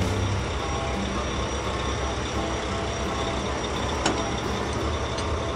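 Truck engine sound effect running steadily, with a single sharp click about four seconds in.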